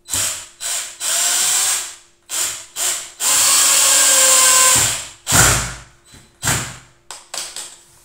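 Cordless drill driving a screw into a wooden frame, run in a series of short trigger bursts, with one longer steady run of about a second and a half about three seconds in, then a few shorter bursts.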